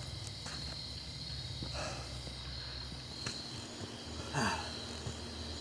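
Faint steady chirring of insects in a continuous high tone over a low hum, with a few soft, brief sounds, the clearest about four and a half seconds in.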